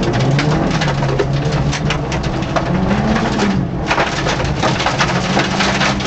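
Peugeot 205 1.9 rally car at speed on a stage: its four-cylinder engine runs hard under a dense crackling clatter from outside the car, the engine note rising briefly about halfway through, and the clatter dropping out for a moment just after.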